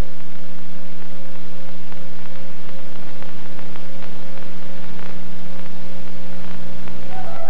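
Steady hiss and electrical hum on an old VHS tape's audio track, with no programme sound over it. A few musical notes start right at the end.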